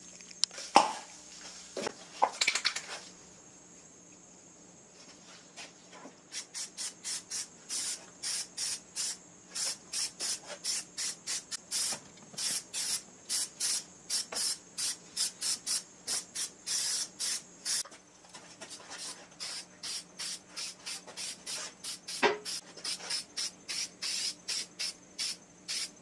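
Aerosol can of self-etching primer spraying in short hissing bursts, about two or three a second, with a brief pause partway through. A few knocks and clatters come near the start and once more later.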